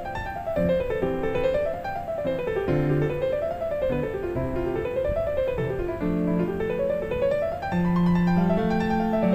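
Background piano music: quick runs of notes rising and falling in waves over longer held low notes.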